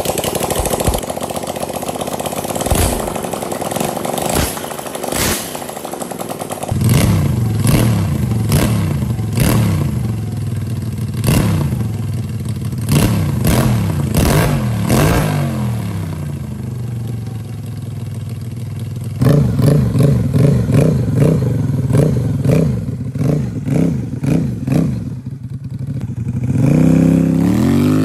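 Scooter engine rebuilt as a 250cc L-twin, running and revved again and again in short blips, its pitch rising and falling with each one. Near the end comes one longer rising rev.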